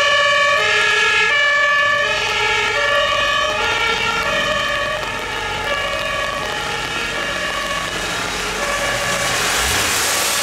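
German fire engine's two-tone Martinshorn, switching between a high and a low note about every three-quarters of a second, a little fainter after the first two seconds. Near the end a rising rush of tyres on the rain-wet road joins it as the truck approaches.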